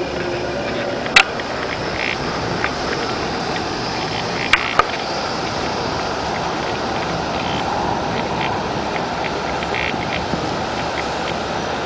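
Steady wind noise, with one sharp click about a second in and two more close together a little before the middle.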